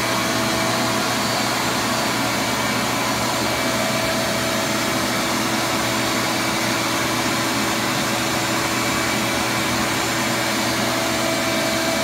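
Vacuum running steadily, its hose nozzle sucking honeybees off the comb.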